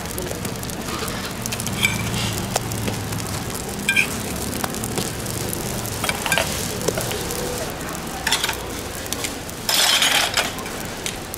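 Sorghum hotteok frying on an oiled griddle, sizzling steadily, with scattered clinks from the stainless steel presses being lifted and set down. A louder hiss lasts about half a second near the end.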